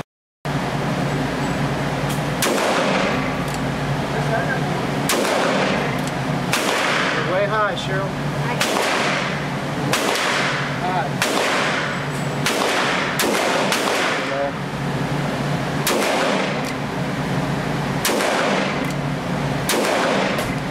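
Gunshots on an indoor range, about a dozen at irregular spacing, each sharp crack followed by a ringing tail.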